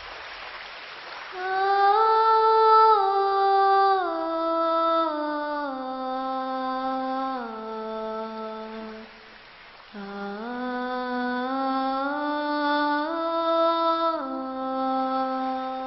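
A woman humming a slow, wordless melody in two phrases that step downward in pitch on held notes, with a short break about nine seconds in. A soft hiss comes before the first note.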